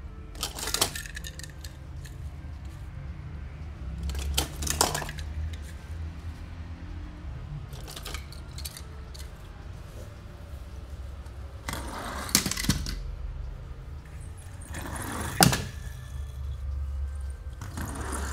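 Toy car packaging being handled and opened: short bursts of crackling and clicking, about six of them every three to four seconds, over a low steady hum.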